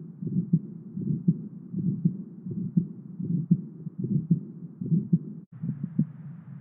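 Recorded abnormal heart sounds: a regular heartbeat, a little over one beat a second, with a murmur filling the gaps between the beats. About five and a half seconds in, it cuts off for a moment and a different heart recording starts.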